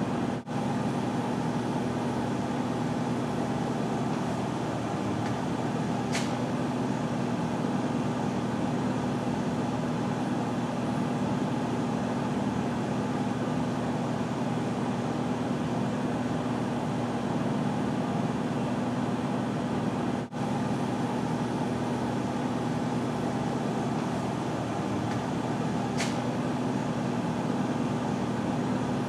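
Steady mechanical hum with constant noise. It drops out for an instant twice, and a brief faint hiss comes twice.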